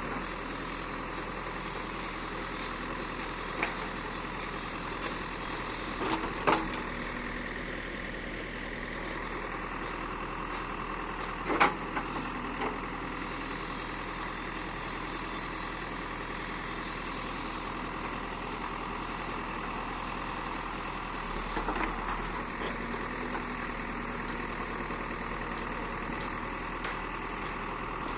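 A steady engine drone, broken by a few sharp knocks, the loudest about twelve seconds in.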